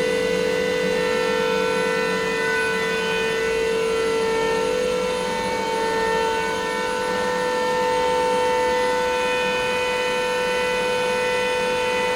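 CNC machining center spindle running while engraving metal: a steady whine made of several held tones, a few of them shifting slightly in pitch.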